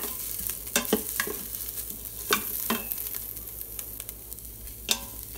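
Diced vegetables and garlic sizzling in an Instant Pot's stainless steel inner pot on sauté, a steady hiss, while a wooden spoon stirs them and knocks against the pot several times.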